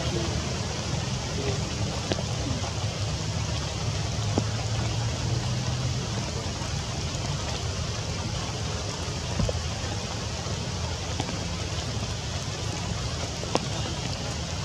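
Steady rain falling on leaves, with a low rumble underneath and a few sharp ticks scattered through it.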